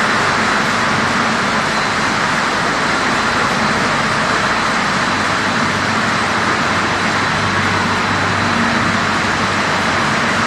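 Macaroni production line machinery running: a steady loud din of motors, fans and conveyors, with a thin steady high whine and a low hum underneath.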